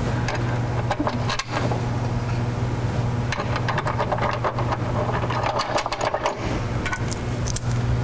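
A steady low mechanical hum from a running motor, with scattered metal clicks and clinks of bolts, washers and nuts being fitted to a side-step mounting bracket on the pinch weld.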